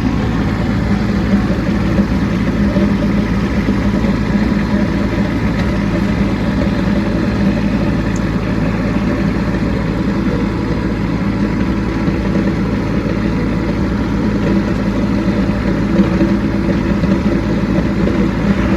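Kubota B2601 compact tractor's three-cylinder diesel engine running at a steady speed while blading snow.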